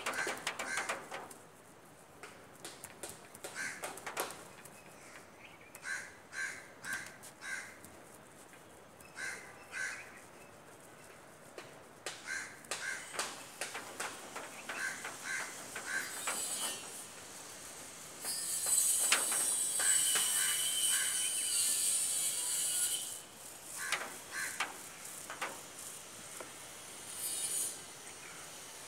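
Crows cawing, repeated short caws in runs of three or four. For about five seconds past the middle a louder high-pitched hiss rises over them.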